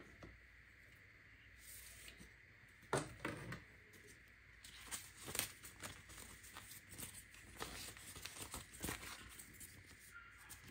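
Paper leaflets and thin cardboard packaging being handled by hand. There is a louder knock and rustle about three seconds in, then a long run of crisp paper crackles and light taps as the leaflets are pulled out and leafed through.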